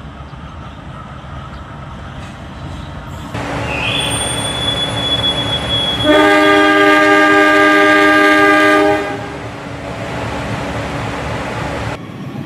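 Diesel-electric locomotive horn sounding one long blast of about three seconds, over the rumble of the train. Before it, a thin, high, steady tone is heard for about two seconds.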